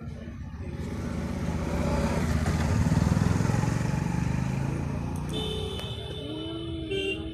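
A motor vehicle engine passing close by, swelling to its loudest about three seconds in and then fading. From about five seconds in, a steady high tone sounds together with a lower wavering tone.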